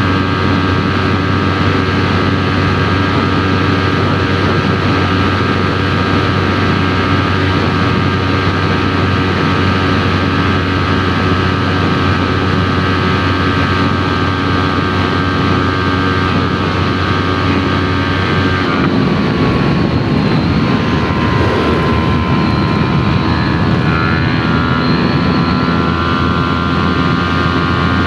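Yamaha R3's parallel-twin engine through an aftermarket Arashi exhaust, running steadily under way as heard from on board. A little past halfway the pitch drops suddenly, then climbs back over the last few seconds.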